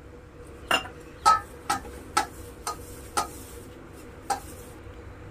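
A hand knocking against a stainless steel mixing bowl while mixing flour and water into dough: about seven sharp, ringing clicks, most about half a second apart.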